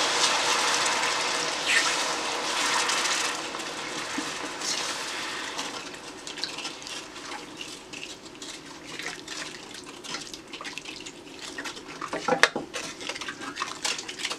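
Chicken broth pouring and splashing into a pot of butter-and-flour roux, a rushing liquid sound that fades over the first few seconds. Then a wooden spoon stirs the broth, with light scrapes and taps against the pot near the end.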